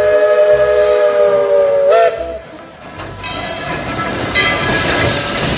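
Steam locomotive sound effect. A multi-tone steam whistle is held for about two seconds and bends in pitch as it cuts off, followed by a hiss of steam and the rolling, chuffing noise of a steam train getting under way.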